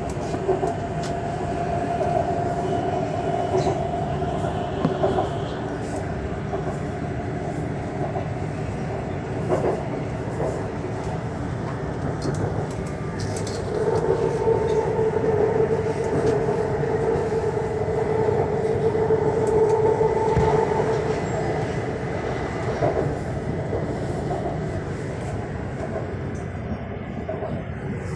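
Bozankaya electric multiple unit running, heard from inside the car by the doors: a steady rumble of wheels on rail with a whine from the traction equipment and scattered light clicks. A louder whine comes in about halfway and fades out again some seven seconds later.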